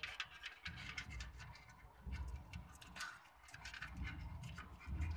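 Irregular clicking and scratching of live crabs' shells and legs against one another and the basin as they crawl in a shallow metal basin of water, over an uneven low rumble.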